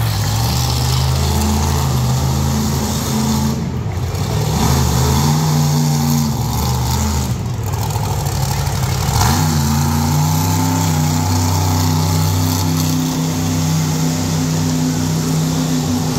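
Monster truck engine running and revving as the truck drives across the dirt arena. The revs climb about four seconds in, drop sharply about nine seconds in, then hold steady.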